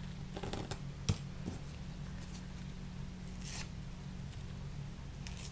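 Paper backing being peeled off fusible-web appliqué pieces: short rustling and tearing sounds, with a sharp click about a second in and longer swishes near the middle and the end, over a low steady hum.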